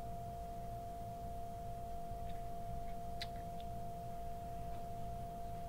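Steady high background hum, one unchanging tone over a lower hum, with a few faint clicks about halfway through.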